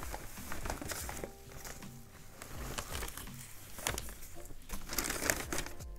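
Packing paper rustling and crinkling as a potted plant is unwrapped by hand, in scattered short crackles.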